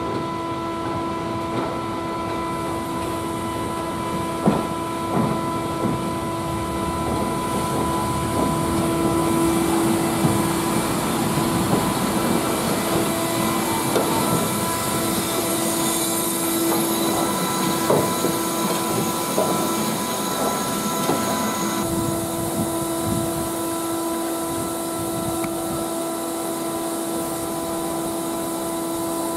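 LMS Stanier 8F 2-8-0 steam locomotive 48305 moving slowly along the platform, with steam hissing, a steady tone and occasional metallic clanks from its running gear. It grows louder as it passes close, around the middle.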